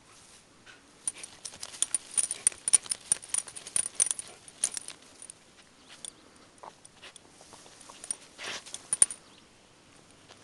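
Rapid metallic jingling and clicking from the dog's harness tag and leash clip as the Ibizan hound paws and noses at the ground hunting for a mouse, densest in the first half. A short rush of noise comes just before the end.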